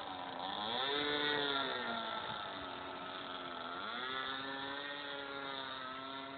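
Flair Puppeteer model biplane's engine running in flight. It climbs in pitch early, drops about two seconds in, rises again near four seconds and then holds steady.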